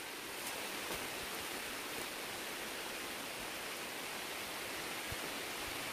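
Steady, even hiss of outdoor ambience in dense forest, with a few faint ticks.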